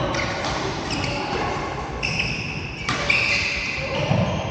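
Badminton play: athletic shoes squeaking on the court floor in short high chirps, with a sharp racket strike on the shuttlecock about three seconds in.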